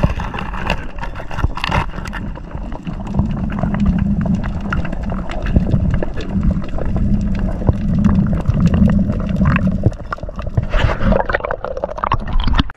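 Underwater sound through an action camera's waterproof housing: muffled water movement with many sharp clicks and knocks, and a low throbbing rumble through the middle stretch as the diver swims.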